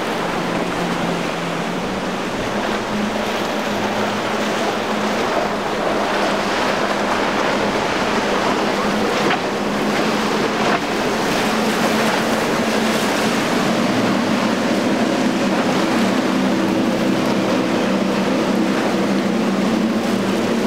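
Large center-console boat running at speed on multiple outboard engines: a steady engine drone under the rush of spray and wake, with wind buffeting the microphone.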